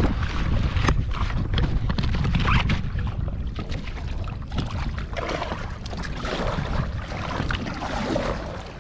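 Wind rumbling on the microphone, with water splashing and dripping from kayak paddle strokes.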